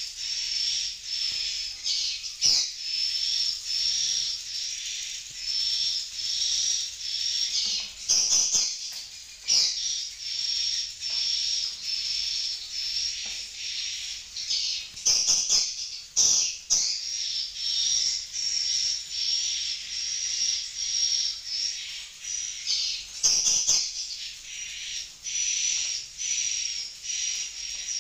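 Swiftlets twittering in a swiftlet house: a dense, evenly repeating stream of high chirps, about two a second, with a few louder clicks now and then.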